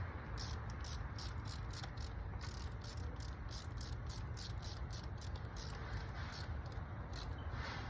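Insects chirping in a rapid, uneven run of short high-pitched pulses, several a second, over a low steady hum.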